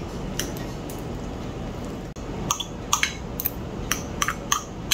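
A metal fork and spoon clinking and scraping against a ceramic bowl while scooping soft baked apple flesh off the skins. There are a few clinks at first, then a quick run of sharp ones over the second half.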